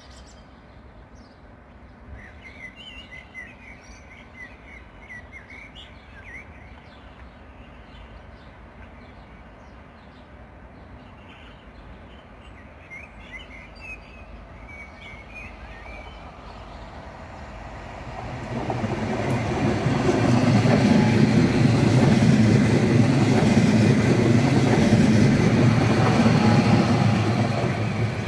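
Birds chirping now and then over a quiet background while an HŽPP low-floor electric multiple unit draws near; about two-thirds of the way in, the train's running noise swells quickly into a loud, steady rumble and rail hiss as it passes close by.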